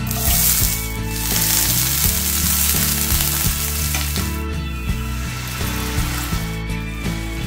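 Chopped onions hit hot oil in a frying pan and sizzle loudly. The sizzle is strongest in the first second and dies down after about four and a half seconds as they are stirred. Background music with a steady beat plays throughout.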